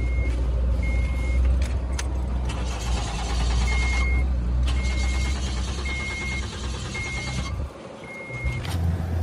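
A car's warning chime beeps about once a second over a steady low rumble from the car. A harsh, noisy whirr runs through the middle for several seconds. Near the end the low rumble briefly drops away, then comes back at a different pitch.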